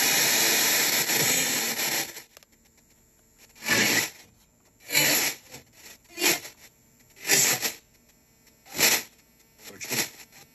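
Ghost-box radio sweep (an SBox-compatible radio) played through a small speaker: a loud, steady static hiss for about two seconds, then it cuts off abruptly. After that, the DAS-ANC noise gate lets through only short bursts of radio sound, about one every second or so, with near silence between them.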